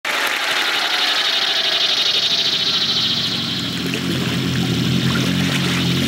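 Desert ambience from a film sound-effects track: a high, fluttering chirr that fades out about three to four seconds in, giving way to a low, steady buzzing drone.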